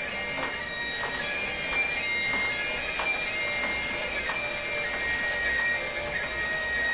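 Bagpipes playing: steady drones under a tune, with short grace-note flicks about every half second.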